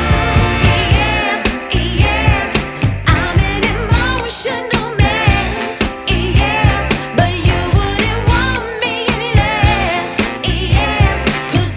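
Background music: a song with a wavering sung melody over a steady beat.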